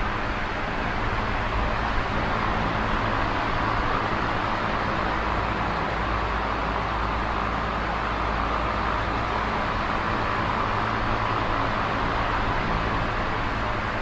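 Electric fan running steadily: a constant whir of moving air over a low, even motor hum.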